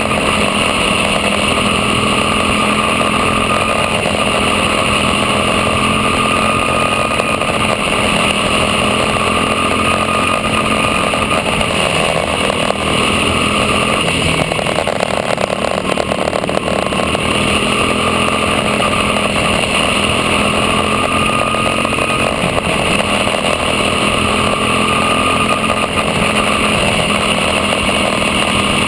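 Quarter midget race car's small single-cylinder engine running hard and close, heard from a camera mounted on the car. Its pitch rises and falls a little as the car goes round the track.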